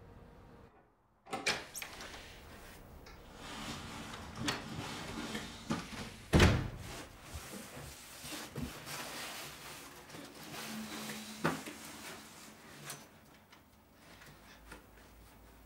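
Someone moving about and handling objects: irregular rustling, knocks and bumps, the loudest a heavy thump about six and a half seconds in, growing sparser towards the end.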